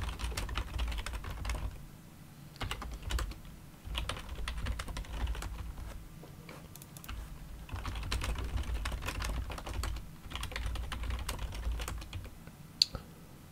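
Typing on a computer keyboard: rapid key clicks in several quick bursts separated by short pauses. The typing stops a little before the end, leaving one lone key click.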